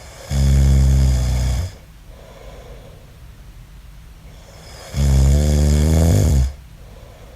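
A man snoring in his sleep: two loud, low-pitched snores about four seconds apart, each lasting about a second and a half.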